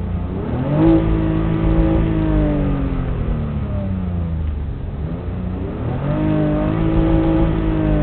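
BMW E46 320i's 2.0-litre inline-six free-revved twice with the car at a standstill, heard inside the cabin. Each time the pitch climbs quickly, holds for a second or two, then sinks slowly back toward idle. The second rev comes about six seconds in and goes higher on the tachometer.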